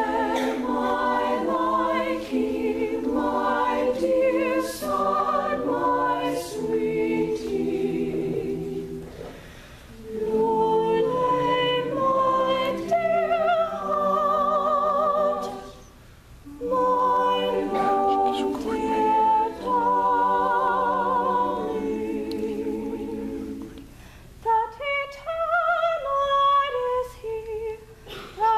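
High school madrigal choir singing a cappella in harmony: long held chords with vibrato, in phrases broken by short pauses. Near the end the sound thins to a lighter, more broken line of one or two voices.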